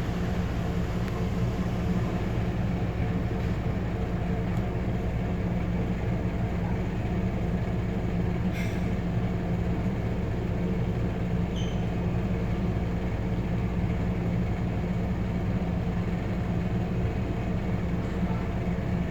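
Arlec Style 3 exhaust fan running with a steady droning hum from its bad bearings. A single short click about halfway through.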